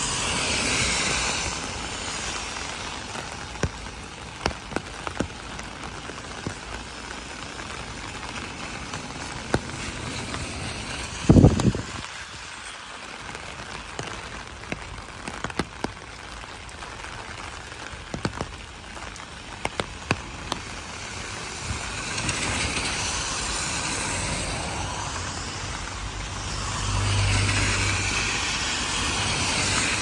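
Heavy rain falling on a wet street, with the hiss of car tyres on the wet road swelling as vehicles pass at the start and again over the last third. Scattered sharp clicks run throughout, and one brief loud thump comes about eleven seconds in.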